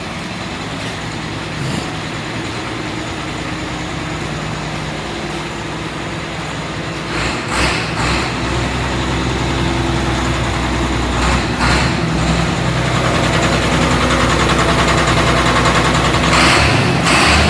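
Freshly overhauled Hino straight-six diesel engine driving a generator, running steadily on its test run. About seven seconds in its note gets heavier and a little louder, with a few brief surges.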